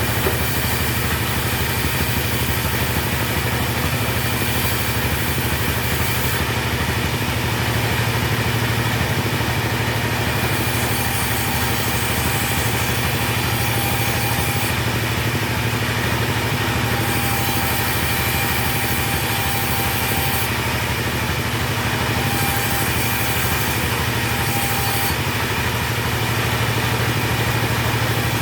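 Chainsaw engine running steadily without a break, its pitch holding level throughout.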